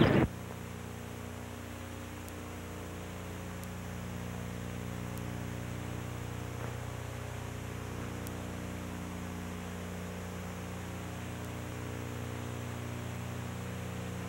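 Steady electrical hum with a faint hiss, unchanging throughout: a soundtrack gap in an old film transfer, with no sound from the scene itself.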